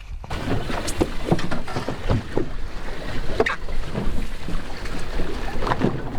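Wind buffeting the microphone on an offshore fishing boat, with water noise and scattered knocks and splashes. It comes in suddenly about a third of a second in and stays loud and rough.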